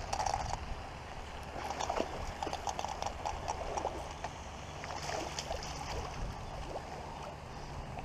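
A hooked fish splashing and thrashing in shallow lake water as it is reeled in to the bank, with irregular clicks and splashes.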